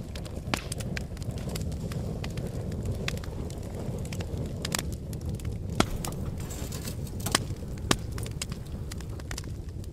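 Wood fire crackling, with irregular sharp pops over a steady low rumble.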